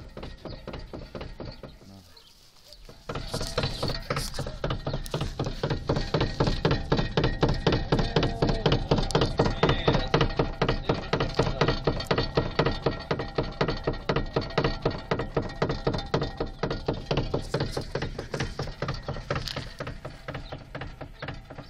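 BMW E30 steering rack knocking: quick, regular clunks, several a second, that start abruptly about three seconds in and keep going steadily, the knock of a worn rack with play in it.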